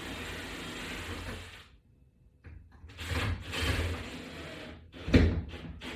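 Toggle bolt and screw being worked in a drywall mounting bracket: a steady rasping at first, a short pause, then uneven scraping and rubbing with a knock about five seconds in.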